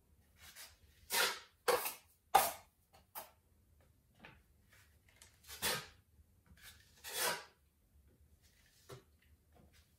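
Metal putty knife scraping a painted wall in about half a dozen short strokes at uneven intervals, with a couple of sharper clacks in the first few seconds.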